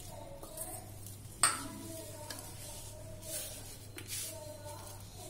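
Hand rubbing powdered jaggery into crumbly pearl-millet dough on a steel plate, with soft rustling swishes. A steel tumbler knocks once against the plate about a second and a half in.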